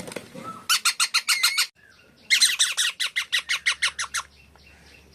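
Pet Indian parrot calling in two runs of rapid, harsh repeated notes, about eight a second, the second run longer than the first.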